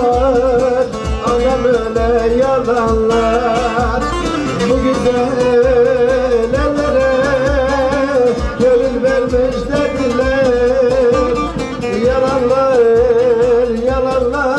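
Turkish folk dance music: a wavering, ornamented melody over a steady drum beat.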